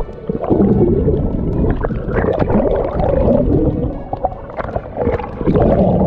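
Muffled water gurgling and sloshing, with a low rumble underneath.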